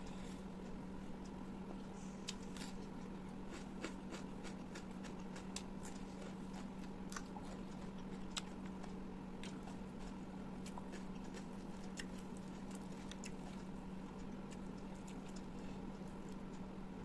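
Close-miked mukbang eating sounds: chewing and biting with frequent sharp, crisp crackles and clicks, which thin out near the end, over a steady low hum.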